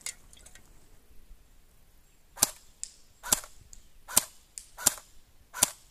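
CYMA AKM electric airsoft rifle (AEG) firing single shots on semi-auto: five sharp shots under a second apart, starting about two seconds in.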